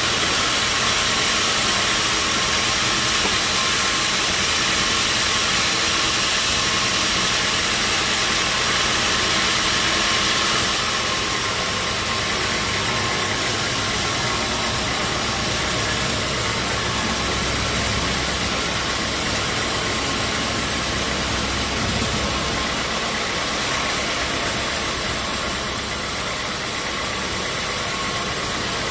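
Sawmill machinery running steadily, a loud continuous noise with a faint steady hum; it eases slightly about ten seconds in.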